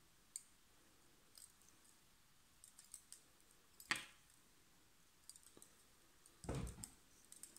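Faint hand-work noises while thread is wound around a float's tip: a scatter of small sharp clicks and ticks, with a softer, duller thump a little after six seconds.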